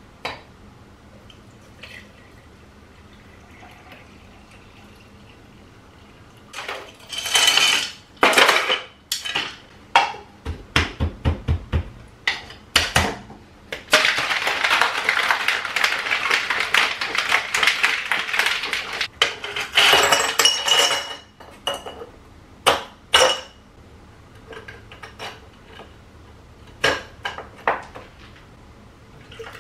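Kitchen glassware and utensils clinking and knocking during drink preparation, with a stretch of dense, steady rattling about halfway through and scattered knocks after it.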